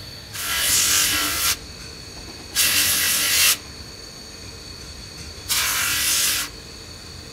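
A steel pinion gear is pressed against a small abrasive disc spun by a bench motor, giving three grinding passes of about a second each, with the motor's steady whine between them. The rebuilt pinion's teeth are being ground back to shape.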